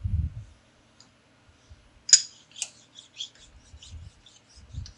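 Machined steel parts being handled on a bench: a low thump at the start, a sharp metallic clink about two seconds in and another just after, then a run of light clicks and scrapes.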